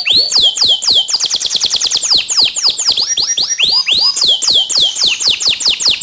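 Canary song: a continuous run of rapid whistled notes, each sliding downward in pitch, about seven a second, with a faster, higher trill about one to two seconds in.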